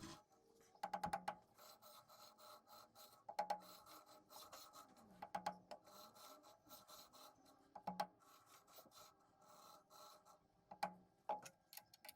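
Faint light metallic clicks and knocks in small clusters every couple of seconds, some with a brief ring: a pulley being worked by hand in a lathe chuck while it is dialed in with an indicator.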